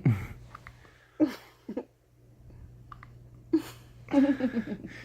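Hiccups: a run of short, sharp hiccups, each a sudden catch with a brief falling sound, spaced irregularly about a second or two apart, then a longer drawn-out sound with falling pitch near the end.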